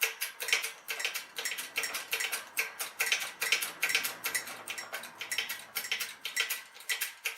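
A run of sharp metallic clicks, about three to four a second and slightly uneven, from pressing a new wheel bearing and race into a 2003 Ford Explorer's rear knuckle.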